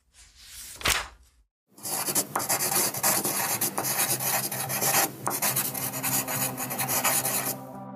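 A brief rush of noise about a second in. Then about six seconds of dense, scratchy rubbing or rasping noise with many small clicks, which cuts off near the end as soft music begins.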